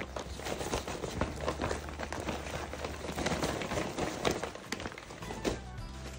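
Brown paper bag rustling and crinkling in the hands, a bag of seasoned flour used for coating chicken pieces, in a quick uneven run of crackles with a louder one about four seconds in.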